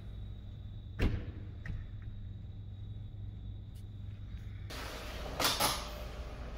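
Steady low hum of room ventilation, a single sharp knock about a second in, then near the end a louder rush of noise with a clatter as a door is pushed open into a commercial kitchen.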